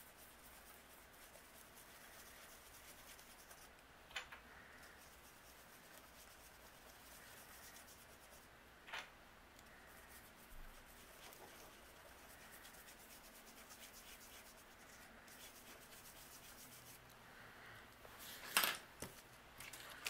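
Faint rubbing of a mini blending brush dabbing ink onto cardstock through a plastic stencil, with a few light taps, and a louder rustle of paper and plastic being handled near the end.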